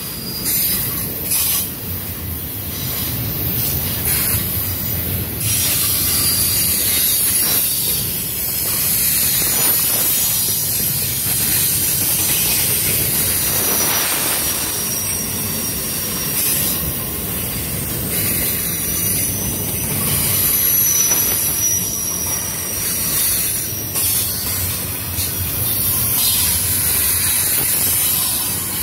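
Double-stack intermodal freight train rolling past at close range: a steady rumble of steel wheels on the rails with a hiss above it. A thin, high wheel squeal comes and goes.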